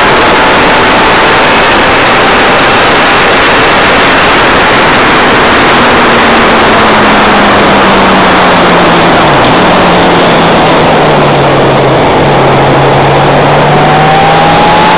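Racing motorcycle at track speed, recorded by an onboard camera, with heavy wind roar on the microphone drowning most of the engine. The engine note falls as the bike slows into a corner, breaks briefly about nine seconds in, then climbs again near the end as it drives out.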